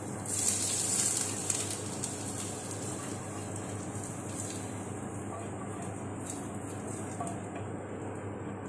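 Hot ghee tempering with red chilli (rogan) poured from a frying pan onto spinach curry, sizzling. It is loudest in the first second or two, then settles to a faint steady hiss.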